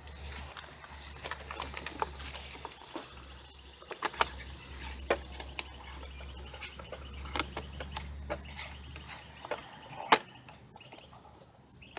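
Steady high-pitched chirring of crickets, with scattered clicks and knocks from plastic and metal parts being handled as the chainsaw's bar cover is fitted back on; the sharpest click comes about ten seconds in.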